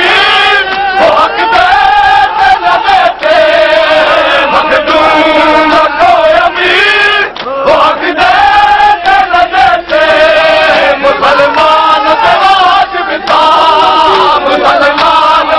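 A group of men chanting a noha, a Shia mourning lament, together in loud sung phrases that rise and fall, with brief breaks between lines.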